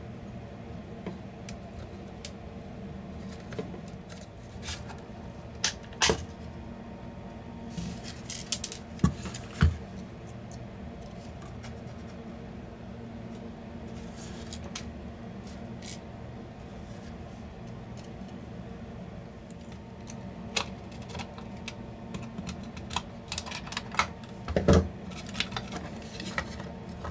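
Scattered clicks and knocks of tools and small speaker parts being handled while a Bluetooth speaker is taken apart, more frequent near the end, over a steady low hum.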